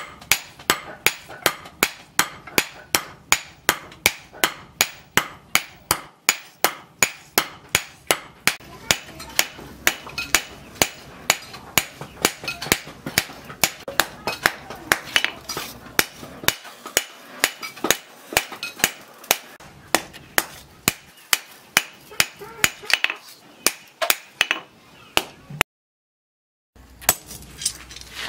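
Hand hammer forging a red-hot steel knife blade on a post anvil: sharp metallic blows in a steady rhythm of about two to three a second. The blows break off near the end.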